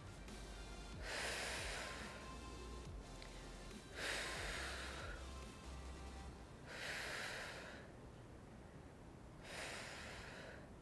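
A person's forceful breaths, four in all, about one every three seconds and each lasting about a second. They are paced with slow dumbbell chest presses.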